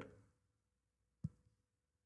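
Near silence with a single faint click about a second in.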